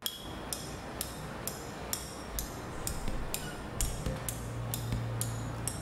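Metal hand tool tapped on metal in a steady beat, about two bright, ringing clicks a second, setting the tempo of an oil change played as percussion. A low steady hum comes in about four seconds in.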